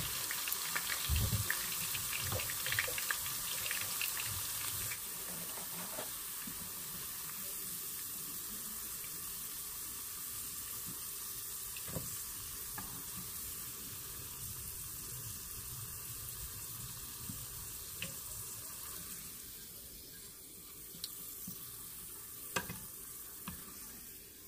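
Carrot chunks frying in hot oil in a nonstick wok: a steady sizzle that gets quieter toward the end as the pieces are lifted out. A few sharp taps of a spoon against the pan break through.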